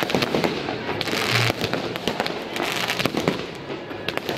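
Aerial fireworks bursting in quick succession: a dense run of bangs and crackles, with two stretches of hiss about a second and nearly three seconds in, picked up by an HTC One phone's microphone.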